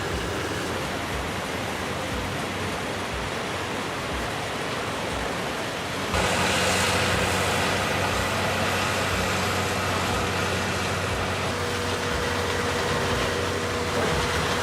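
Heavy machinery running steadily, a constant mechanical noise. It gets louder and harsher about six seconds in.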